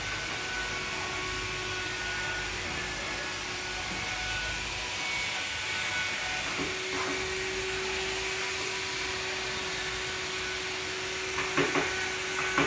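A small power tool's motor running steadily, as used for carving wood, with a few knocks near the end.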